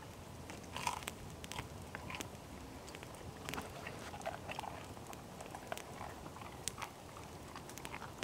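Irregular crackles and pops from a wood campfire with strips of bacon sizzling on a skewer over it, along with chewing.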